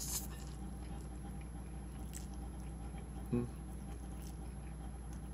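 A man slurping in a forkful of ramen noodles, then chewing with soft, wet mouth sounds, with a brief hum of his voice about three seconds in. A steady low electrical hum sits underneath.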